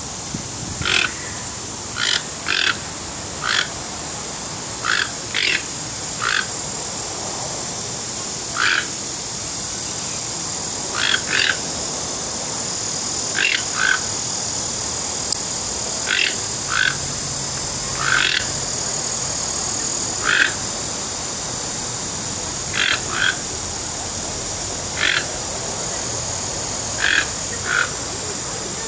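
Toco toucan calling: short croaks, single or in pairs, about every one to two seconds, over a steady high hiss.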